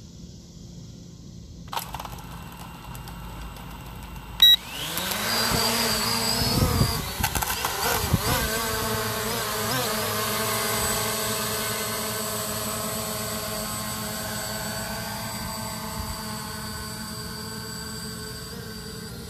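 SG906 Pro quadcopter's brushless motors and propellers spinning up after a click and a short beep, the whine rising and wavering in pitch as it lifts off. It then settles into a steady, many-toned whine that slowly fades as the drone climbs.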